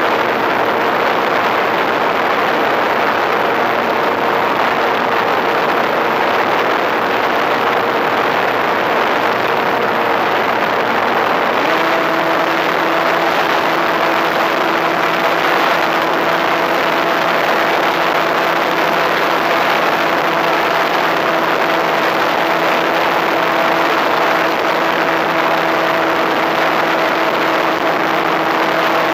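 Rush of airflow over an RC plane's onboard camera in flight, mixed with the steady drone of its motor and propeller. A little over 11 seconds in, the motor's note shifts to a different steady pitch.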